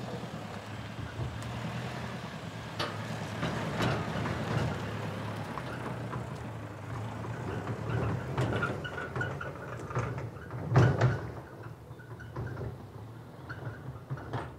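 A vehicle towing an open trailer drives off along a rough dirt track, its engine running low and steady while the trailer rattles and clunks over bumps. The loudest clunks come about eleven seconds in, and the sound then fades as it moves away.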